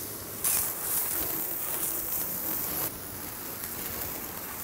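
Garden hose spray nozzle spraying water onto a fiberglass boat hull, rinsing off an oxalic-acid stain remover. The spray hiss starts about half a second in, is loudest for a couple of seconds, then goes on more quietly from about three seconds in.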